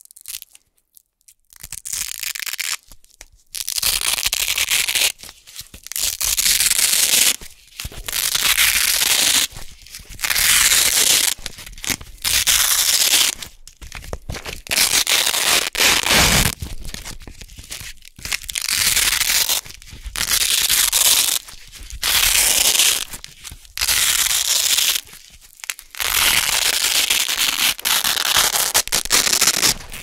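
Strips of Velcro hook-and-loop fastener being peeled apart over and over, each peel a loud, crunchy ripping sound lasting a second or two. There are about a dozen peels with short pauses between them, the first starting about a second and a half in.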